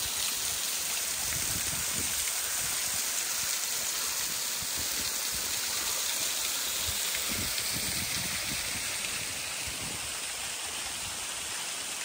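A small waterfall's thin streams falling and splashing onto rocks: a steady rushing hiss.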